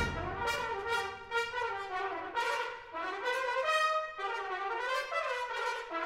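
A British-style brass band playing a quieter passage, with cornets and upper brass carrying moving melodic lines and little low brass underneath.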